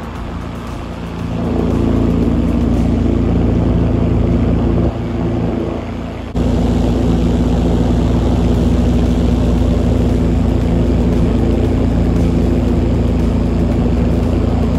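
Light aircraft engine and propeller droning steadily in flight, with wind rush on the microphone. The level sags at the start and again about five seconds in, then comes back up sharply about six seconds in.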